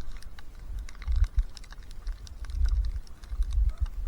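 Irregular small clicks and ticks of a GoPro in a plastic protective cover being handled and fitted to a head mount, with low rumbling bumps from the handling.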